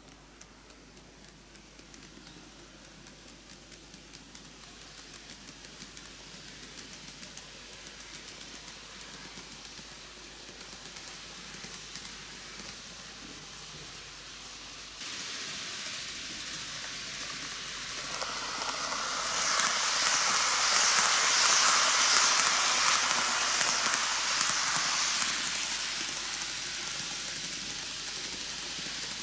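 TOMIX N-gauge Kintetsu 80000 series 'Hinotori' model train running on track, its wheels making a steady rattling hiss on the rails with faint regular ticks. It grows louder, is loudest about two-thirds of the way through as the train comes close, then eases off.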